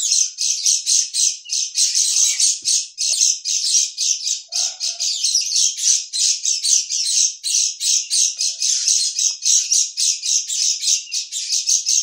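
White-eyes (pleci) calling: rapid high chirps, about four a second, without a break, from a recording played as a lure to draw in white-eyes.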